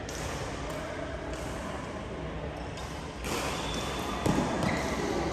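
Badminton play on an indoor court, with the hall's background noise. A single sharp racket strike on the shuttlecock comes a little after four seconds in, followed by a brief high squeak.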